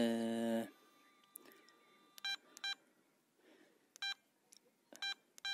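Garrett ATX pulse-induction metal detector's control box sounding as its settings buttons are pressed. A low buzzy tone lasts about half a second at the start, then come five short, identical high beeps, each confirming a button press.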